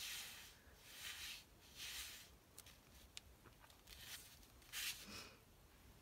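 Faint rustling and sliding of card stock as the pull tab of a handmade waterfall card is drawn, the panels flipping over in a few soft swishes with a couple of light ticks.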